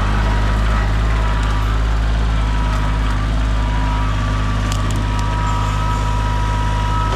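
Heavy equipment's engine running steadily under load, with a steady high whine over it and a few light knocks about two-thirds of the way through.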